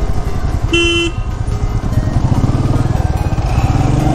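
Motorcycle engine running steadily while riding, with a short horn beep about a second in.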